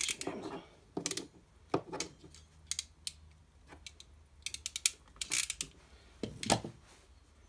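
Ratcheting crimping pliers clicking as they close on an insulated flat push-on terminal on a wire. The clicks come in several short runs, a quick run about five seconds in, and there is a heavier knock at about six and a half seconds.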